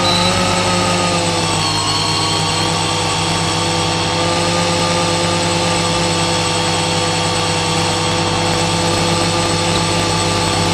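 Octocopter's eight electric motors and propellers running steadily in slow flight: a constant hum and whine with several held tones, a few of which drift slightly in pitch in the first two seconds.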